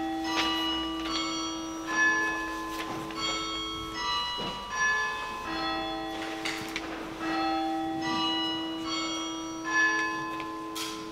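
Church bells ringing: a slow run of strokes about once a second, each note ringing on and overlapping the next over a steady hum.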